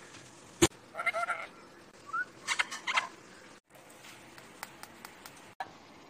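Pet parrot giving a short wavering call about a second in, set among sharp clicks and taps. The loudest of these is a single sharp click just before the call, and a second cluster of clicks follows a little later.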